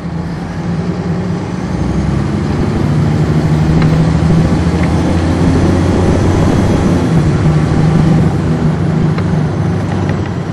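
On-board sound of a 1999 NovaBus RTS transit bus running, its Cummins ISC inline-six diesel engine humming steadily under road noise. It grows louder over the first few seconds and eases off a little near the end.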